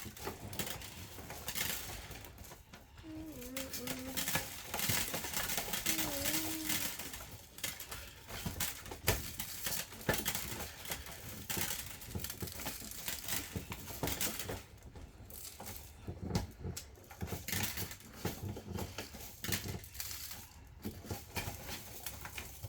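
Dry rice and plastic beads pattering and rattling against plastic toy farm machinery, with scattered clicks and knocks from the toys being handled.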